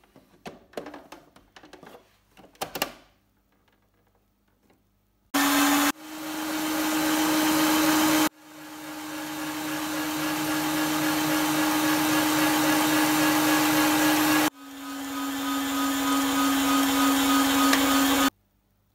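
A few clicks and knocks, then an electric stand mixer's motor whirring steadily at high speed with a held hum, its balloon whisk beating egg whites in a steel bowl. It breaks off abruptly and picks up again a few times, and stops near the end.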